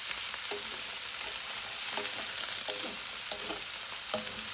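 Chunks of pork, squash and eggplant sizzling in a wok as they are stir-fried, with a wooden spoon scraping and knocking against the pan now and then.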